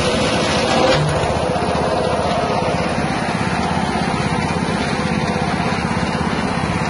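Small 6.5 hp petrol engine running steadily at speed, driving a bark-shredding machine, with a fast even engine pulse.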